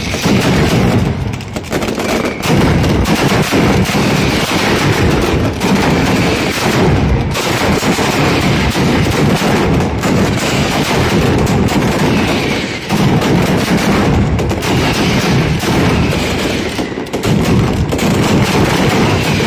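Mascletà firecracker barrage: strings of firecrackers going off in very rapid succession, a dense, continuous rattle of loud bangs that thins out briefly a few times.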